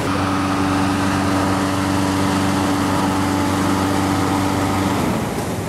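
An engine runs at a steady, unchanging pitch over a broad rushing roar, and the engine hum stops about five seconds in.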